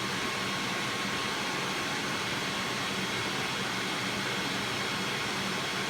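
Steady whir of running fans moving air, an even rush with a low hum and a few faint, thin steady tones.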